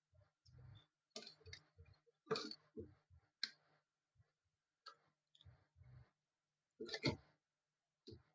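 Faint, scattered plastic clicks and light knocks as a laser printer's paper-pickup gear and its small plastic parts are handled, the loudest about two and a half seconds in and again about seven seconds in.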